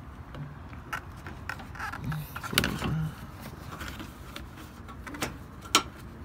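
Hands working around plastic cowl trim and hoses in a car's engine bay: scattered clicks, taps and light scrapes, the loudest a sharp click near the end.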